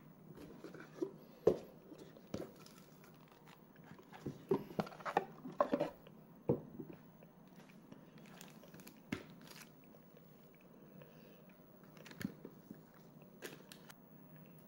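Handling noise: small plastic bags crinkling and small parts being set down on a hard countertop, in scattered clicks and rustles that are busiest about four to six seconds in.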